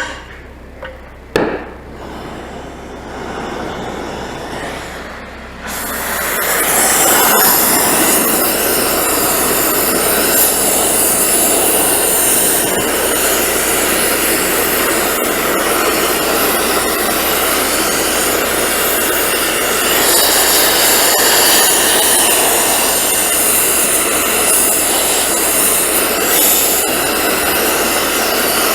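A couple of sharp metal clanks, then a gas heating torch hissing, turned up about six seconds in to a loud steady roar as it heats mild steel red for bending.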